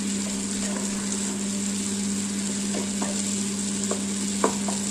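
Table-top wet grinder running: its motor hums steadily while the stone rollers churn thick, soaked urad dal batter in the stainless steel drum, with a few light clicks in the last two seconds.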